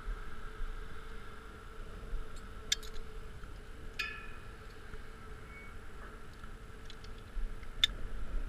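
Metal climbing hardware clicking and clinking a few times, the clink about halfway through ringing briefly, over a faint steady hum and low wind rumble on the microphone.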